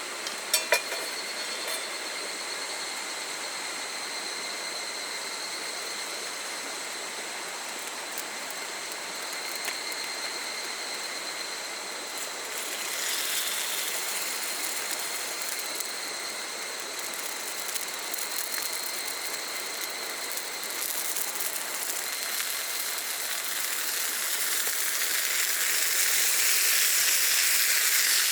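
Food sizzling in an iron frying pan over a campfire, hissing with scattered crackles, swelling about halfway through and growing louder over the last few seconds. A couple of metal clinks near the start, and a steady high insect drone underneath.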